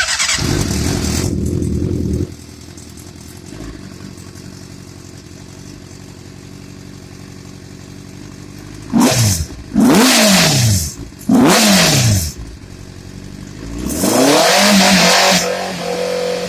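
Honda CBR600RR inline-four engine in a quad, running through a freshly fabricated stainless steel exhaust: it starts up loud, settles to an idle, then is revved sharply three times and once held a little longer.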